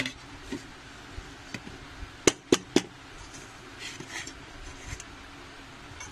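A metal cake tin knocking against a plate as a cooled sponge cake is turned out of it: three sharp knocks a little over two seconds in, with lighter taps and handling around them.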